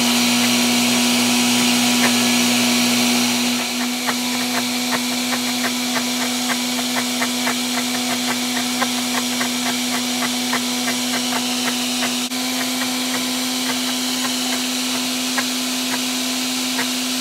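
Electric countertop blender running steadily, blending zucchini pancake batter of grated zucchini, egg, banana and coconut oil. Its motor level drops slightly about four seconds in, and a fast, light ticking runs through the rest of it.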